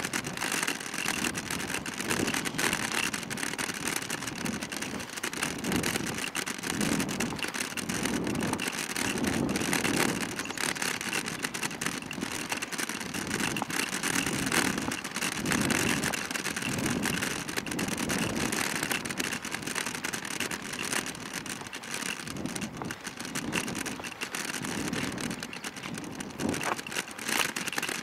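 Kick scooter's wheels rolling along a paved path: a steady rumbling hiss, with a low rumble that swells and fades roughly once a second.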